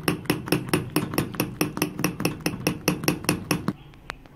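Maash dal batter being beaten in a bowl to mix in baking soda: rapid, even knocking of about five strokes a second. It stops shortly before the end, with one more knock after it.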